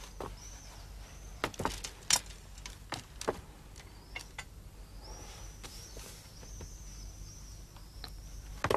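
Sparse knocks and clicks of movement on a hard floor, the loudest a sharp knock about two seconds in. Faint high chirps come and go through the second half.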